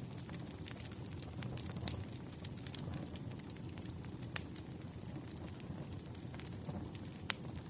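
Wood fire burning: a steady low rumble of flames with scattered sharp crackles and pops of burning logs. The loudest pops come about four seconds in and near the end.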